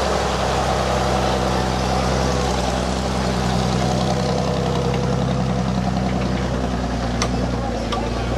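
1941 Citroën T-45 military truck's engine running steadily at low speed as the truck drives slowly past close by. Two light clicks come near the end.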